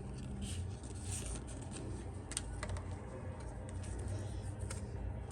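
Yu-Gi-Oh! trading cards being handled and slid past one another by hand: soft rubbing with a few light clicks over a low steady hum.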